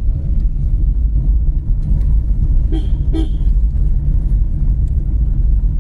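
Two short vehicle horn beeps in quick succession about three seconds in, over the steady low rumble of a moving vehicle.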